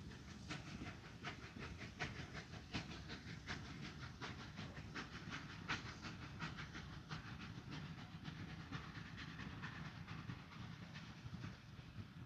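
Distant exhaust chuffs of the Ol49 steam locomotive pulling its train away, a faint even beat of a little over one chuff a second that weakens near the end.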